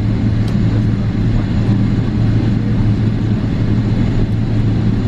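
Steady low cabin drone inside a Boeing 777-300ER on the ground before takeoff: engine and air-system hum heard from a passenger seat.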